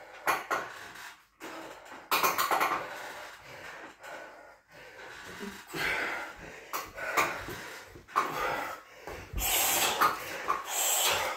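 Heavy, wheezing breaths of a man recovering between heavy-bag rounds, coming in repeated surges about a second long. There are light metallic clinks from the swinging bag's chains on its stand.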